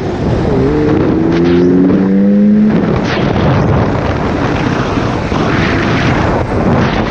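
Sport motorcycle engine accelerating hard, heard from the rider's seat. The pitch drops briefly at a gear change about half a second in, then climbs steadily. A little under three seconds in, a steady rush of wind and road noise takes over from the engine.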